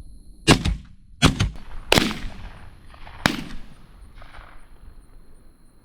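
Shotgun blasts during a dove shoot: four shots in under three seconds, each followed by a fading echo.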